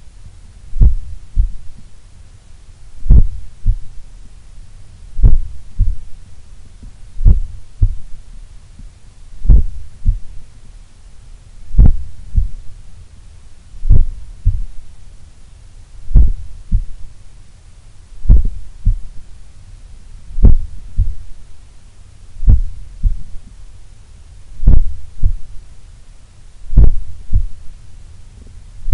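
A human heart heard through a stethoscope on the chest, beating slowly and evenly, about one beat every two seconds, each beat a low thud followed by a softer one. The very slow rhythm is that of an unusually low resting heart rate, typical of an athlete's heart.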